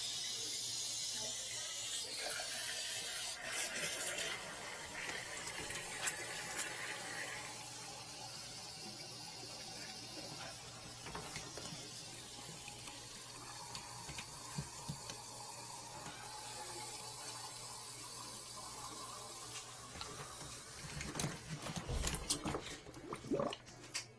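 Water running steadily, most strongly in the first few seconds and softer after about seven seconds, with a few knocks of handling near the end.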